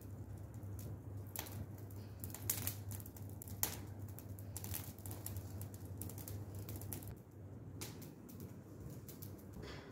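A woven straw hand fan flapped over glowing charcoal in a grill, making irregular light clicks and taps. A low steady hum runs underneath and stops about seven seconds in.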